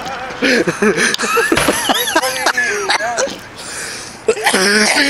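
Young men's voices close to the microphone, talking and exclaiming without clear words, with a louder, harsher vocal burst near the end.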